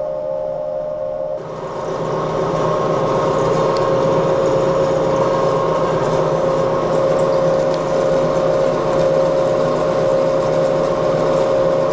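Metal lathe running as it turns a blank, a steady whine over machine noise. About a second and a half in, the sound changes abruptly and becomes louder and fuller.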